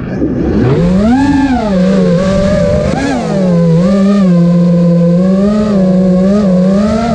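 Racing quadcopter's four Emax RS2205 2300kv brushless motors and props, buzzing as heard from the onboard camera. The pitch climbs and drops with throttle: one big rise and fall about a second in, then smaller blips.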